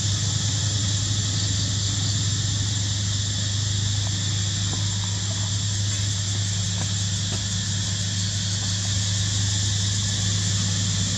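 Steady high-pitched drone of forest insects, unchanging throughout, over a steady low hum.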